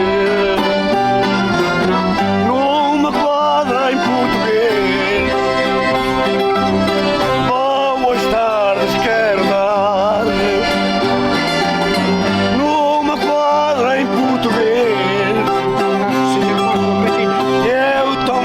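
Accordion and plucked string instruments playing a lively folk tune, with voices singing over them.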